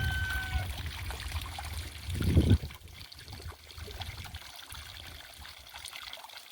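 Water trickling steadily. A rooster's crow tails off in the first half-second, and a short low rumble comes about two seconds in.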